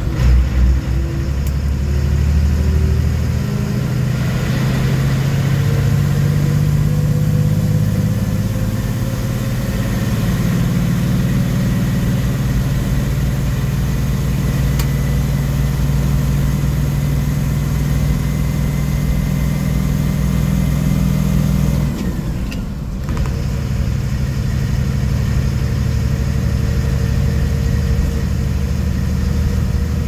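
Cat 3126 diesel engine of a Blue Bird FS-65 school bus pulling steadily, heard from inside the cab, its pitch slowly climbing as the bus gains speed. About 22 seconds in the engine note falls and breaks off for about a second, then picks up again, as with a gear change on the five-speed Eaton Fuller manual gearbox.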